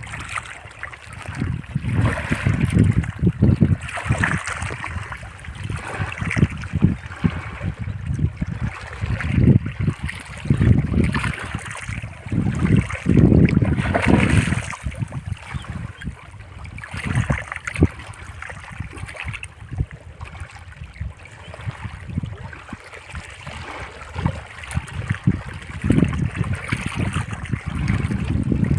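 Water sloshing and trickling, with irregular low rumbling surges coming and going every second or two.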